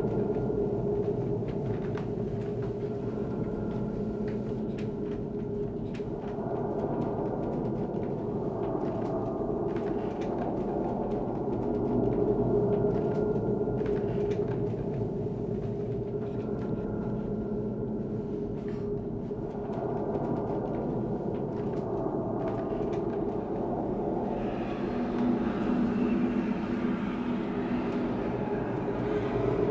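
A sustained, ringing drone of several steady tones, shifting every few seconds and swelling near the end: an eerie ambient soundtrack.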